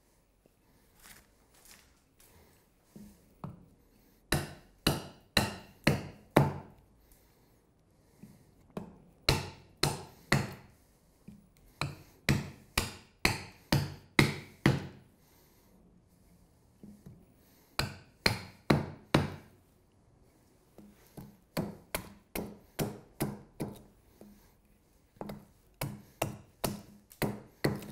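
Carving hatchet chopping a wooden spoon blank that rests on a chopping block: runs of sharp chops, about two a second, with short pauses between the runs.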